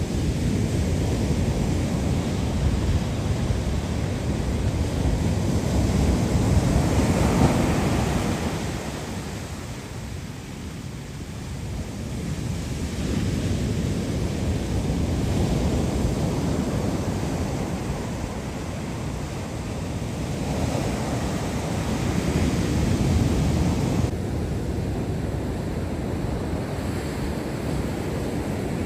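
Ocean surf breaking and washing up a sandy beach, swelling louder every several seconds as each wave comes in, with wind buffeting the microphone.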